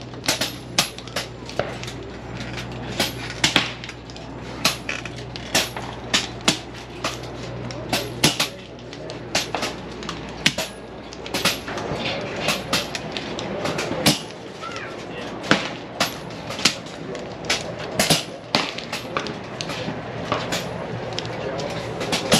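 PCP air rifles firing along a benchrest line: sharp cracks at irregular intervals from several guns, roughly one or two a second. A low steady hum runs under them and stops about eight to ten seconds in.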